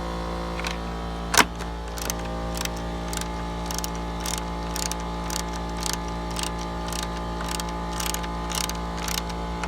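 Ratcheting socket wrench clicking about twice a second as a radiator mounting bolt is tightened, after one sharp knock about a second and a half in. A steady hum runs underneath.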